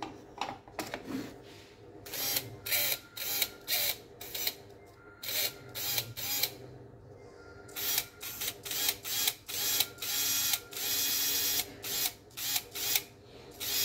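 Small brushed DC motor of a Makita HP347D cordless drill running free out of its housing, switched on and off through its trigger switch in many short bursts, each spinning up and quickly coasting down, with one longer run about ten seconds in. The motor and switch are being bench-tested to diagnose the drill.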